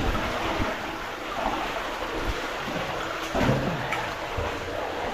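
Water sloshing and splashing as cavers crawl through a shallow cave stream, with irregular surges over the steady noise of the moving water.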